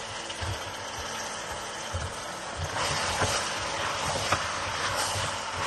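Wooden spoon stirring raw potato chunks into a thick tomato and beef stew in a pot, scraping and knocking against the pot. There is a steady hiss throughout, and the stirring gets louder about three seconds in.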